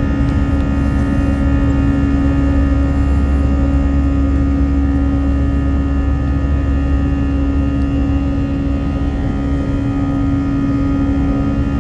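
Airbus A321-200 engines heard from inside the cabin: a steady, loud rumble with a constant hum on top and no change in pitch or level.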